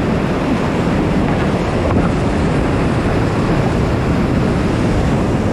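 Whitewater rapids of a creek in high water rushing loudly around a kayak running the drop, heard from the boat in the middle of the rapid: a steady, heavy rush of noise, deepest in the low range.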